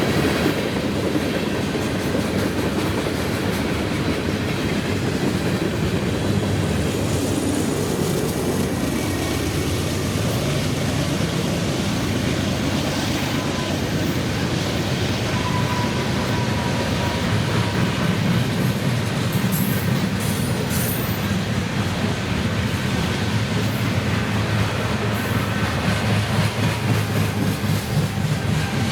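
Freight train rolling past, its cars rumbling and clattering over the rail joints in a steady run.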